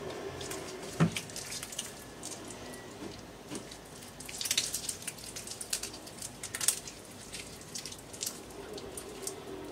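Wet squelching and sticky crackling of a raw octopus being handled with rubber-gloved hands, its arms pulled apart to push out the beak. A single sharp knock about a second in.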